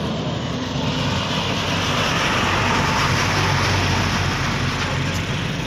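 A large bus driving past close by: a steady engine hum under a rush of road and engine noise that swells about halfway through.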